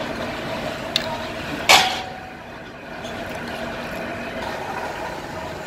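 Steady drone of the engine of a borewell drilling rig running next door. A single sharp clink with a brief ring comes at about 1.7 s and is the loudest sound, with a small tick shortly before it.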